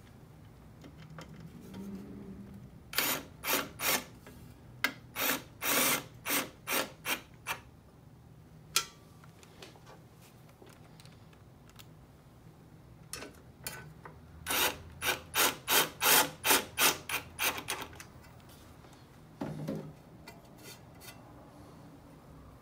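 Cordless screwdriver driving screws into a sheet-metal motorcycle chain guard, run in short trigger spurts of about three a second. There are two runs of about a dozen spurts each, one starting about three seconds in and one about fourteen seconds in.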